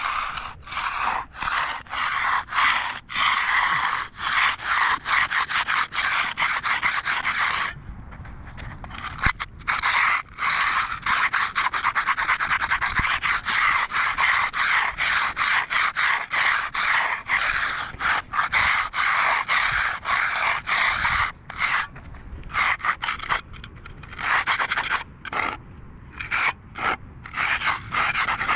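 Stiff-bristle concrete broom dragged across the surface of a freshly finished concrete slab, a scratchy rasp in repeated strokes with short breaks between them, giving the slab its broom finish.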